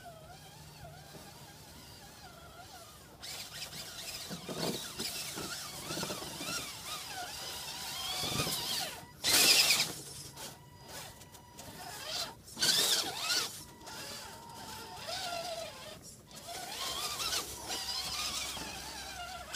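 Vaterra Ascender RC crawler's electric motor and geared drivetrain whining as it spins its tires through slushy snow, throwing snow. The whine rises and falls with the throttle; it is quieter for the first few seconds, with two loud full-throttle bursts about halfway through and a few seconds later.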